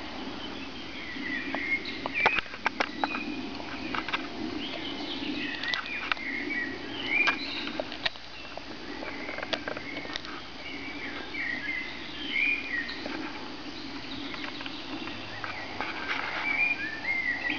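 Dog gnawing a wooden stick, with sharp cracks and crunches of the wood, loudest in a run of snaps a couple of seconds in. Songbirds chirp throughout.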